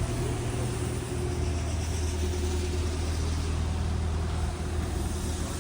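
Kubota KX027-4 mini excavator's diesel engine running steadily at low revs.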